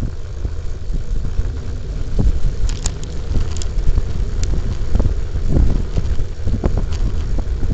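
Steady low rumble of wind and road noise from a camera moving along a wet road, with a few faint sharp clicks about three seconds in.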